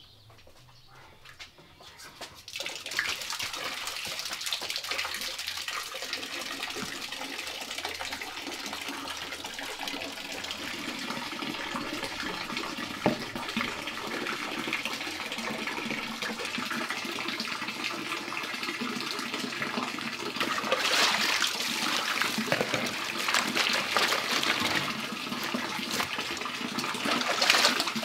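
Water running and splashing into a concrete washing basin as clothes are washed by hand. It starts about two seconds in, swells louder in the last third, and water is poured from a plastic tub over the clothes near the end; a single sharp knock sounds about halfway through.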